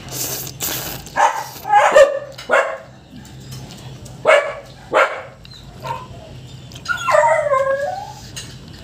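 A dog whining and yipping, with several short pitched cries and one longer falling whine about seven seconds in. Noodles being slurped in the first second.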